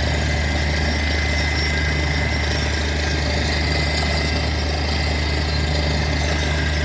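Borewell drilling rig's engine running steadily with a low, even drone and vibration.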